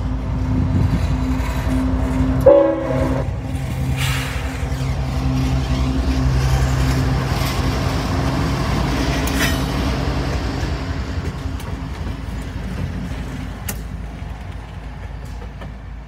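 CSX GE ET44AH and EMD SD70MAC diesel locomotives running light past at close range, their engines making a steady deep rumble along with wheel noise on the rail. A short blast of the lead unit's Nathan K5HL horn about two and a half seconds in is the loudest moment. The rumble fades as the engines move away near the end.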